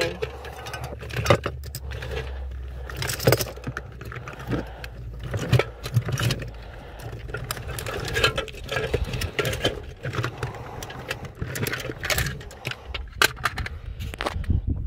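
Hard plastic toy figures knocking and clattering against each other and the sides of a plastic case as a hand rummages through them. There are irregular clicks and rattles throughout.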